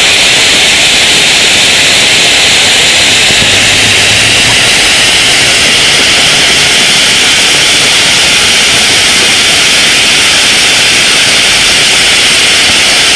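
Gold-rain volcano ground fountain firework spraying sparks with a loud, steady hiss.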